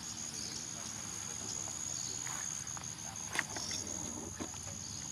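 Steady, high-pitched insect drone, one unbroken tone, over forest background. Scattered light clicks and rustles, with a sharper click about three and a half seconds in.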